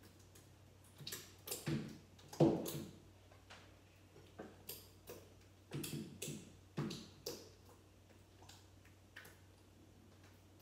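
A mixing utensil knocking and scraping against a bowl while stirring glue-and-borax slime, giving a string of irregular clicks and sticky squelches, the loudest about two and a half seconds in. The slime is still thickening and somewhat watery.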